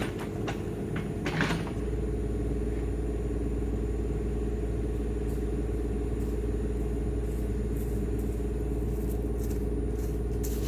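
Heavy machinery's diesel engine running steadily at a distance, a constant low drone, with a few short clicks in the first second or two.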